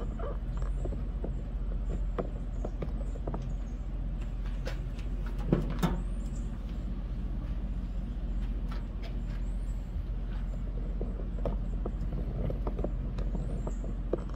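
Metal grill parts being handled: scattered light clicks and a louder clank about halfway through as a barrel charcoal grill's lid is worked and sausages are set on its wire warming rack. A steady low hum runs underneath.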